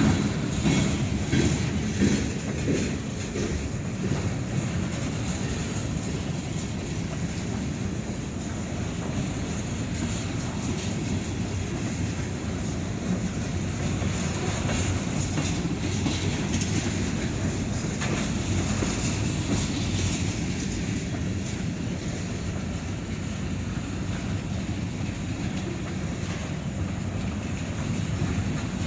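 Freight train cars rolling past, steel wheels clacking over rail joints with a steady rumble; the clacking is sharpest in the first few seconds.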